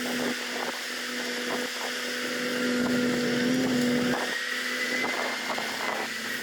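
Heavy earthmoving machine's diesel engine running steadily, with scattered clicks and clatter. A higher whine comes in about two-thirds of the way through.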